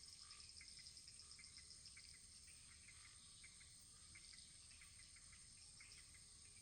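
Faint crickets chirring in a fast, steady pulsing trill, with small scattered ticks and a low hiss underneath.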